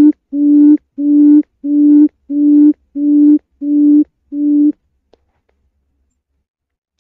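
Quail call: a run of about eight low, steady-pitched hoots, about one and a half a second, stopping about two-thirds of the way through, after which only a few faint clicks remain.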